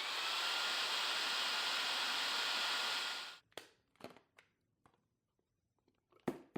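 Candy SO103 cordless stick vacuum's motor running with a high whine that steps up in pitch right at the start as it switches to turbo mode, then cuts off after about three seconds. A few light clicks and knocks follow, the sharpest near the end.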